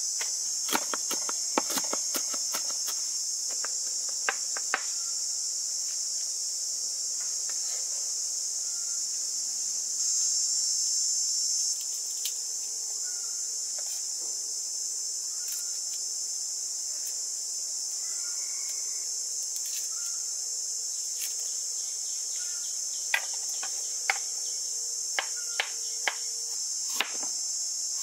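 Steady, high-pitched insect chorus, swelling for a couple of seconds about ten seconds in. Over it, a kitchen knife taps sharply on a wooden cutting board: a run of chops in the first few seconds, a few single taps in the middle, and a quicker run of chops near the end as garlic is sliced.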